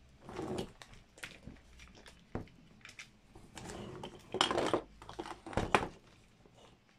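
Handling noises from a DeWalt DWP611 compact router being turned over and adjusted in the hands: scattered clicks, knocks and rustling, loudest about four and a half and almost six seconds in.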